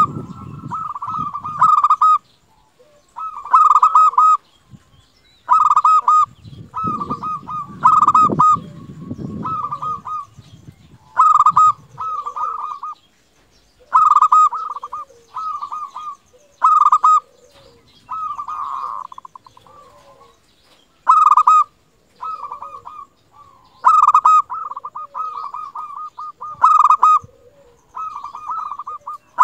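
Zebra dove (perkutut) singing its cooing song: short phrases of rapid rolling coos, each trailing into a lower note, repeated about every one to two seconds.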